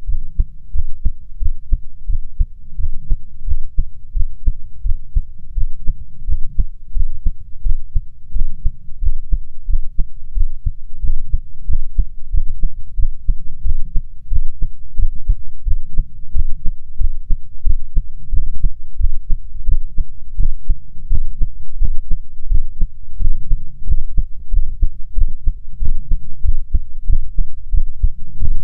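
A person's heartbeat heard through a stethoscope: a steady run of repeated thudding heart sounds over a low rumble.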